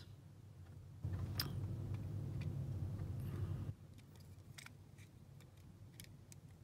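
Handling noise and a few light plastic clicks as an 8-pin plug-in relay is lined up and pushed onto its socket base, with a low rumble from about one second in until nearly four seconds.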